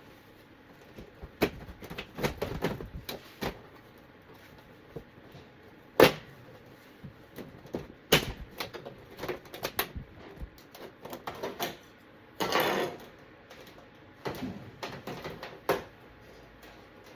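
Plastic TV back cover being pried off and handled: irregular clicks, knocks and clatter as the clips release, with one loud knock about six seconds in and a short scrape around twelve and a half seconds.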